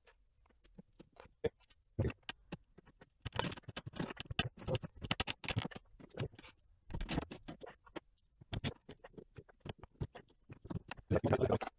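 Irregular small clicks, taps and scratches of hands handling zip ties and plastic parts on a 3D printer's Y-axis carriage. The clicks come in clusters, with a denser run near the end.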